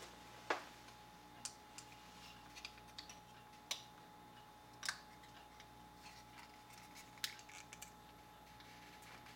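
Scattered light clicks and taps of a metal workpiece and spring clamps being handled and set into a milling fixture in a vise, over a faint steady tone.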